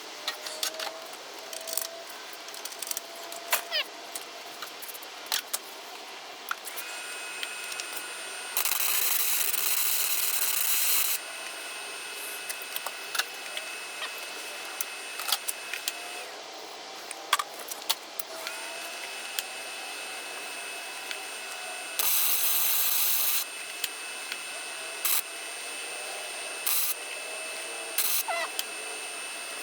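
Welding the final corner of a steel box frame: two runs of an electric welding arc, a loud steady hiss about two and a half seconds long and then about one and a half seconds, with scattered clicks and knocks of handling before, between and after.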